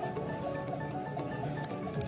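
Background music, with a single sharp metallic clink about one and a half seconds in.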